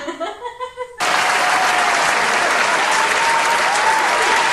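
A large crowd applauding, cutting in abruptly about a second in, with a thin wavering tone running over the clapping.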